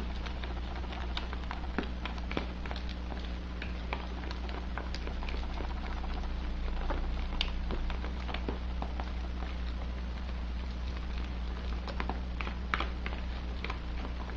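Thick cake batter being stirred by hand in a plastic bowl: irregular wet clicking and squelching as the utensil works through the batter, over a steady low hum.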